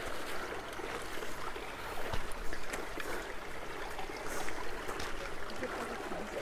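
A small brook trickling over rocks, with a few steps knocking on stones about two seconds in.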